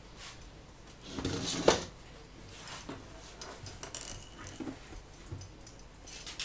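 Speaker cabinet being turned around and shifted by hand: a scraping shuffle about a second in that ends in a sharp knock, then lighter knocks and rustling.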